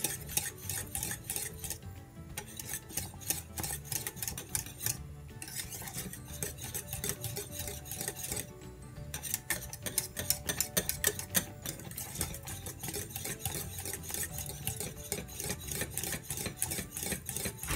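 A wire whisk beating rapidly around a stainless steel pot of thick, cooking pastry cream, its wires clicking and scraping against the metal, with short breaks three times. The cream is thickening as it simmers.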